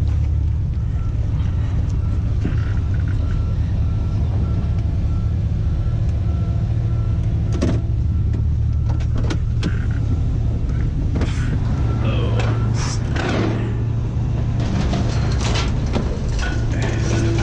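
Pickup truck driving, a steady low engine and road rumble heard from inside the cab, with rattles and clicks and, around the middle, a few short squeals that slide up and down in pitch.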